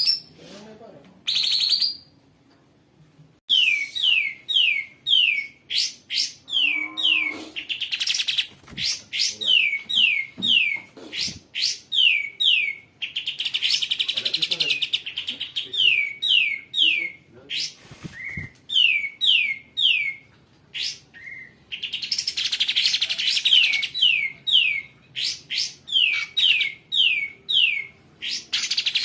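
Kapas tembak bulbul singing a long song: runs of short, sharp chirps that each sweep downward, about two to three a second, broken by harsher rattling passages.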